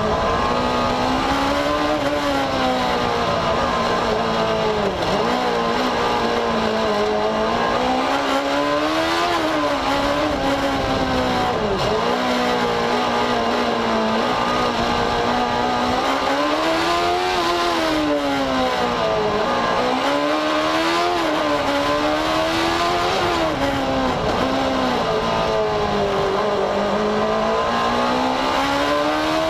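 Single-seater racing car's engine heard onboard, revving up and dropping back again and again as the car accelerates and brakes through the chicanes. The loudness stays steady throughout.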